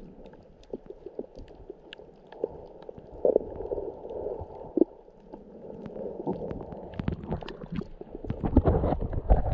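Muffled underwater sound picked up by a camera held below the surface: a low rumble of water with scattered sharp clicks and pops. It grows louder near the end.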